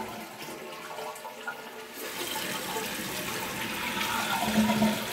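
Toilet flushing with a newly installed tank kit: tank water rushing out past the lifted red flapper while the fill valve refills the tank. A steady rush of water that grows louder about two seconds in.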